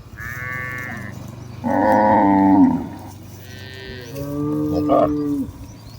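Cattle mooing, several animals calling one after another: about four moos at differing pitches, some higher than others, the loudest about two seconds in.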